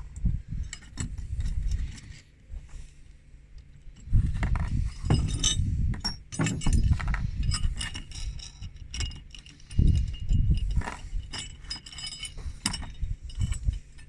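Small steel bolts and metal hardware clinking and rattling as they are handled, with irregular clicks and dull knocks as parts are moved and set down.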